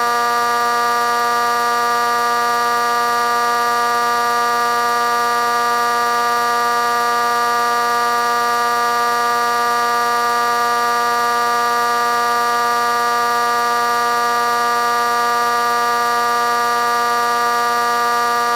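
A loud, steady buzzing tone with many overtones, held at one unchanging pitch and level throughout.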